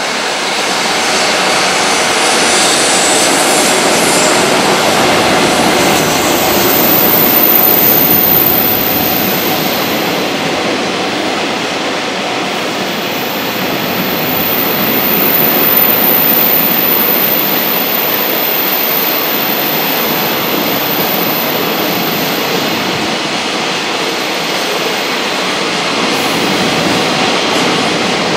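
Long freight train passing at speed: an electric locomotive followed by a string of container wagons, wheels on rail making a loud, steady rumble that swells twice. A thin high whine comes and goes over it.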